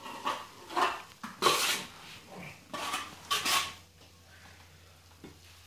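Steel plastering trowel scraping plaster off a hawk and across the wall in a series of short, sharp metal scrapes.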